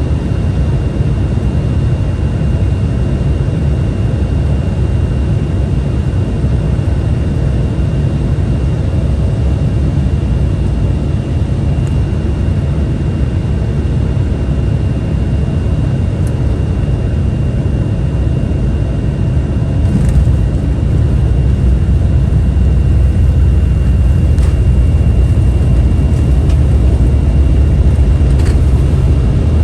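Cabin noise inside an Embraer 175 regional jet: a steady low rumble of the engines and airflow, with a thin, steady high whine. About two-thirds of the way through, a short knock is heard and the rumble grows louder and stays louder.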